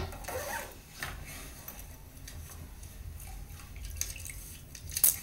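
Toilet water splashing and bubbling as a man's head is held down in the bowl, with a sharp splash near the end. Heard through a television's speaker.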